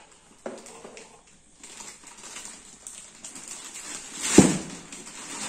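Plastic packaging rustling and crinkling as a laptop in its protective plastic sleeve is lifted out of its cardboard shipping box, with one loud thump a little over four seconds in.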